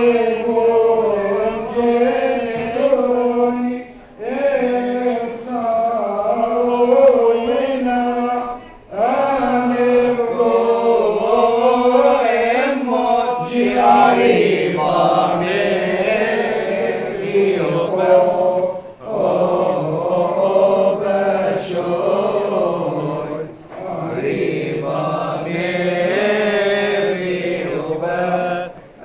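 Voices chanting a Coptic Orthodox liturgical hymn in unison, long wavering phrases broken by short pauses every few seconds.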